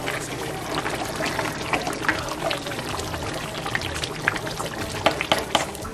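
Thick tomato stew with goat feet simmering in a frying pan as a spoon stirs it: wet, irregular plops and clicks over a steady bubbling hiss.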